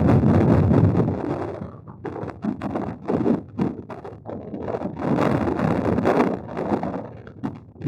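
Wind buffeting the microphone in gusts, strong at first, then a lull of a few seconds broken by scattered knocks and rustles, before another gust.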